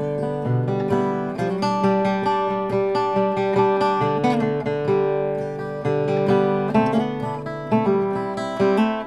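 Music: a strummed and plucked acoustic guitar playing steadily.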